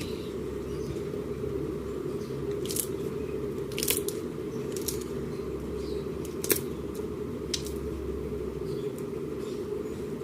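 Slime being squeezed and worked by hand, giving a handful of sharp crackling pops about a second apart over a steady low hum.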